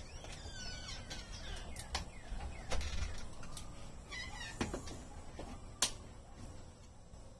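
Outdoor ambience of several small birds chirping and calling, with a few sharp clicks, the loudest late on, over a low rumble.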